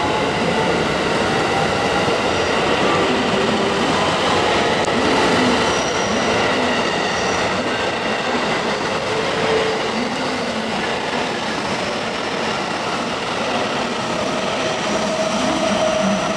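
Train running on the rails: a steady rolling noise with faint high whining tones over it.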